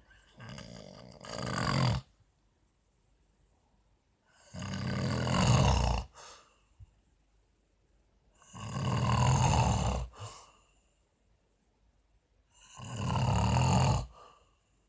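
A man snoring: four long snores about four seconds apart, each swelling in loudness and then cutting off sharply.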